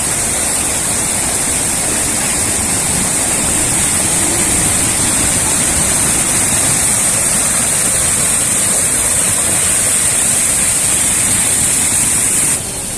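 Waterfall of more than 40 metres pouring into its pool: a loud, steady rush of falling water that drops in level abruptly near the end.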